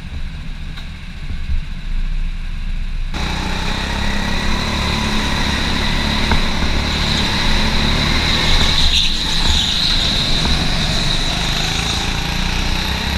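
Go-kart heard from the driver's helmet camera: a muffled low rumble at first, then, about three seconds in, a steady rush of kart noise and air with a constant high whine as the kart drives round the track.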